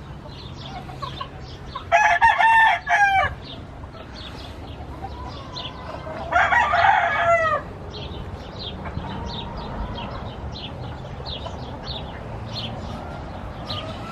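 Roosters crowing twice, once about 2 seconds in and again about 6 seconds in, each crow short, over continual high peeping of chicks.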